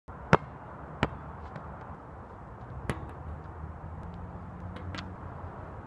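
Basketball being dribbled on an asphalt court: a few sharp, unevenly spaced bounces, the two loudest in the first second or so.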